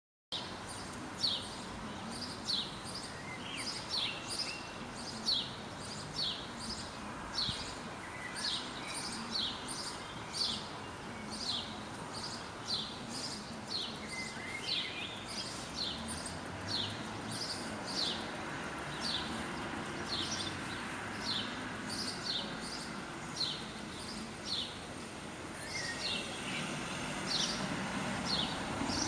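A bird chirping over and over in short, high, falling notes, evenly spaced about one to two every second and a half, over a steady outdoor background hiss.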